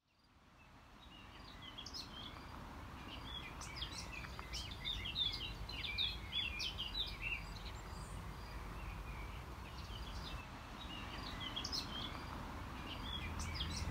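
Outdoor birdsong: several small birds singing and chirping in quick, repeated short notes over a low, steady background rumble. The sound fades in over the first two seconds.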